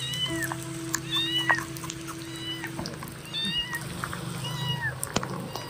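Young kitten mewing about five times, thin high-pitched cries that rise and fall in pitch, over a steady low drone.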